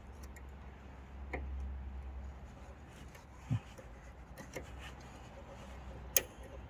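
Faint handling of gasless flux-core welding wire being pushed into the wire feeder of a Hanshin HST-200MIG welder. A few light clicks and taps sound over a low steady hum, with a dull knock about three and a half seconds in and the sharpest click about six seconds in.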